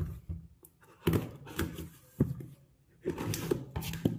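A folding card knife cutting the packing tape on a small cardboard box, and the box being handled: a series of short scratchy rasps and several dull knocks.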